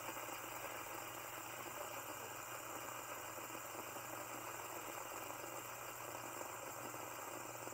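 Fidget spinner spinning steadily on its bearing: a faint, even whir over a low steady hum.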